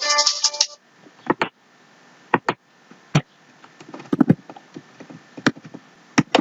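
A snatch of music that cuts off suddenly under a second in, followed by scattered computer keyboard and mouse clicks, about ten sharp taps, some in quick pairs.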